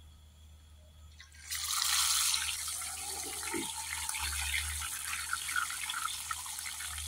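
A whole tilapia going into hot cooking oil in a frying pan: a sudden loud sizzle about a second and a half in, easing to a steady sizzle with many small pops as it fries.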